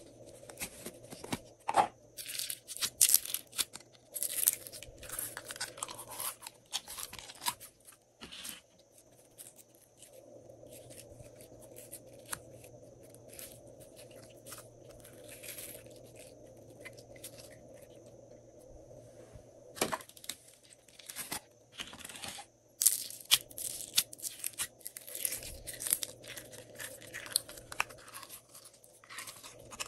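Clear glitter slime being squeezed out of plastic cups and stretched and pressed by hand: irregular bursts of sticky popping and squelching, with a quieter stretch in the middle.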